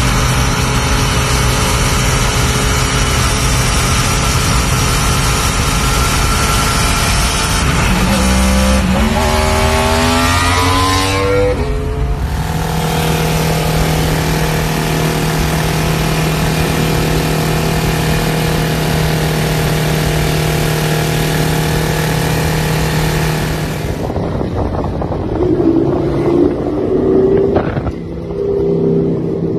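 Superbike engines at speed in three back-to-back clips. A Yamaha R1 runs at a steady note, then revs up with the pitch rising for about four seconds. A Ducati Panigale holds a steady high note, and near the end a quieter bike's engine note wavers.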